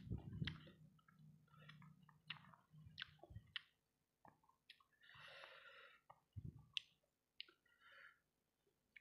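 Close-up mouth sounds of someone chewing fried rice balls coated in sambal, with scattered wet smacks and clicks. A low hum runs under the chewing for the first few seconds, and there is a short breathy rush about five seconds in.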